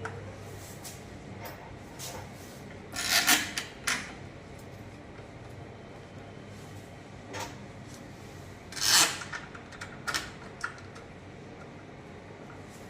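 Screws on a door lock being tightened with a screwdriver: short scraping and rubbing strokes, a few times with quiet gaps between, the loudest about three seconds in and again about nine seconds in.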